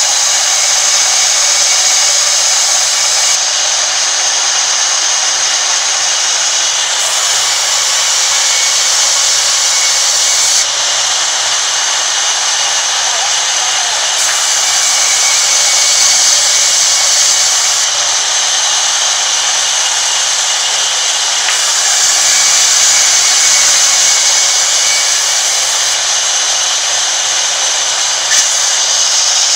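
Sawmill band saw ripping a wooden plank as it is fed by hand: a loud, steady, high-pitched noise of the running blade cutting through the wood.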